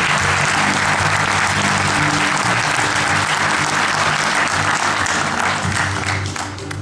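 Audience applauding over background music; the applause fades away near the end.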